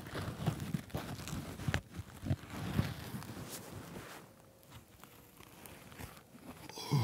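Rustling and crinkling of a sleeping bag and its snow-covered outer cover, with irregular soft bumps and crunches as a person shifts inside and handles them. It goes quieter for a couple of seconds past the middle.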